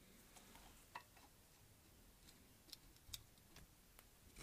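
Near silence with a few faint, sharp metallic clicks, about four of them spread over the few seconds, as a magnetic pickup tool and the steel differential cross pin touch the carrier while the pin is drawn out of a Ford 8.8-inch differential.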